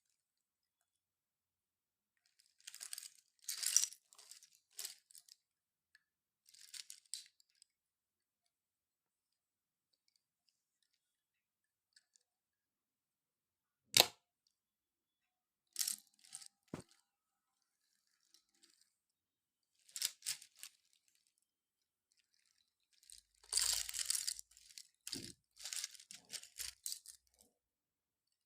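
Slate pencils crunching in short crackly bursts with silent gaps between, a single sharp snap about halfway through and a longer run of dense crunching near the end.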